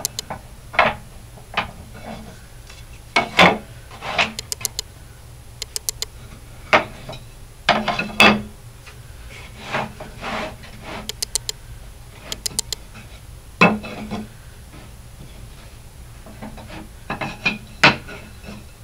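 Poplar and alder wood strips being handled on a table saw's table: irregular knocks, clacks and scrapes as the strips are slid, set down and knocked together, with a few quick rattling clatters.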